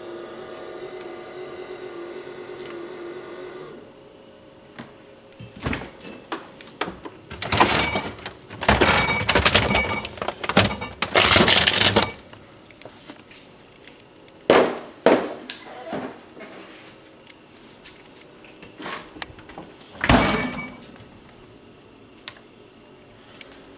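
GE refrigerator's fresh food drawer fan assembly humming steadily, the recurring fan noise fault. The hum stops about four seconds in, followed by a series of loud clattering knocks and thumps, the heaviest of them between about eight and twelve seconds in.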